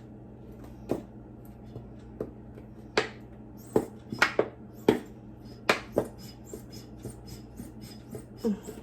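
Plastic sauce bottle and gadget parts being handled and knocked on a hard surface: a run of sharp, irregular knocks and clacks, thinning to lighter taps in the last few seconds.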